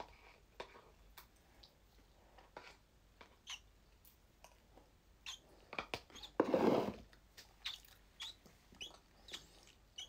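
A person chewing food close to the phone's microphone, with many small mouth clicks and one louder, longer rustling noise about six and a half seconds in.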